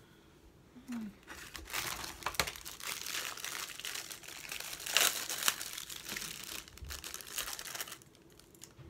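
Plastic bag crinkling and rustling as it is handled, in irregular crackles from about a second in until near the end, loudest around the middle.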